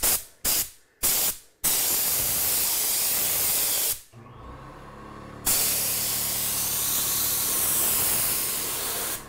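Gravity-feed air spray gun hissing as it sprays thinned paint: three short trigger bursts, then a steady spray of about two seconds, a pause, and a second steady spray of nearly four seconds. It is a test spray to check the paint's thinning and the air pressure.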